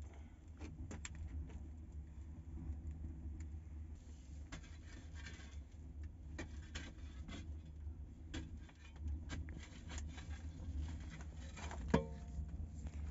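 Wood fire crackling in a clay tandoor oven while a long wooden stick pokes and stirs the burning wood, giving scattered scrapes and knocks over a steady low rumble. One sharper knock near the end.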